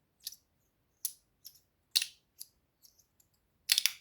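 Stainless steel fidget slider being worked back and forth in the hand, its plates giving sharp, bright metallic clicks about every half second to a second, with a louder quick double click near the end.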